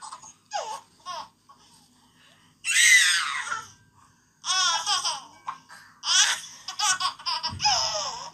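A baby laughing in runs of high-pitched squealing giggles with short pauses between them. There is a brief low bump near the end.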